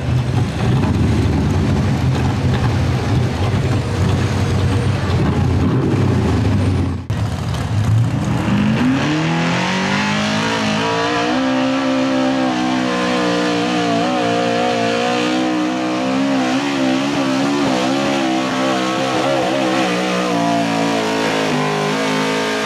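Modified pulling pickup's engine at full throttle, hauling a weight-transfer sled. After a sudden break about seven seconds in, the revs climb for a few seconds, then hold high and waver through the rest of the pull. Before the break, another loud, rough engine is running.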